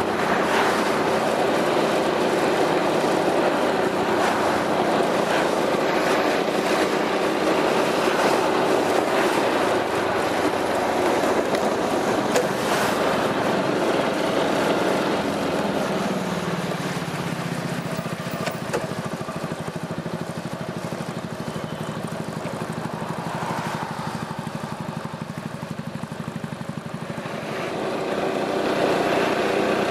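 Piaggio MP3 400 scooter's single-cylinder engine running through an Akrapovič aftermarket exhaust. The engine note drops a little past halfway as it eases off, stays lower for several seconds, then rises again near the end.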